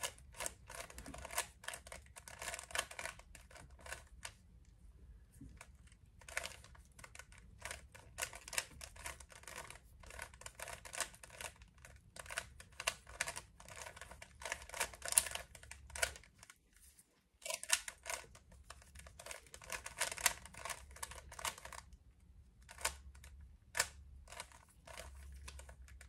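Plastic Rubik's cube being turned by hand: a rapid clatter of layer turns in runs, broken by short pauses.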